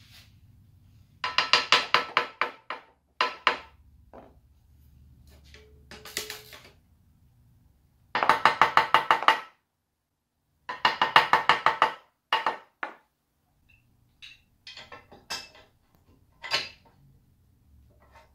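Ratchet wrench clicking in quick runs of about a second, repeated several times with short pauses, as bolts are tightened on a lathe bed.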